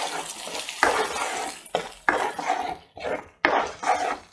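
Spatula scraping and stirring a thick tomato-chilli masala paste in a nonstick pan, in several short strokes: the masala being sautéed until the oil separates.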